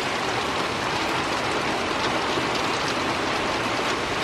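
Heavy thunderstorm downpour: a loud, steady rush of rain with drops spattering on surfaces.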